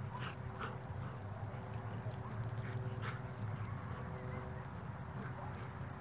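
A dog playing, its movement heard as scattered light clicks and scuffs over a steady low hum.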